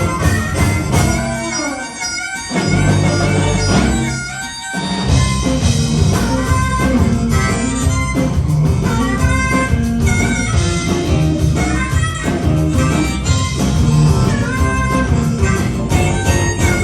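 Live blues band playing an instrumental passage, with a harmonica taking the lead in bending, held notes over guitar, bass and drums. The band drops out briefly twice in the first five seconds.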